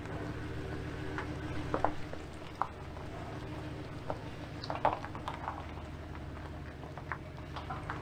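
Steady low engine hum as a pickup truck slowly tows a loaded dump trailer over rough dirt, with scattered knocks and rattles from the trailer and its load of sawmill slabs, a cluster about two seconds in and another about five seconds in.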